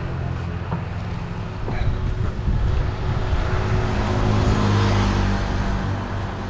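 Motor vehicle engine running steadily with roadside traffic, one vehicle passing by louder about four to five seconds in.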